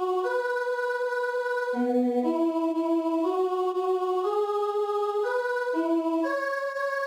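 The soprano part of a Christmas choral song, played back as a synthesized NoteWorthy Composer (MIDI) melody. It is a single line of steady notes without vibrato, each held about half a second to a second, dipping low near the middle and then climbing stepwise.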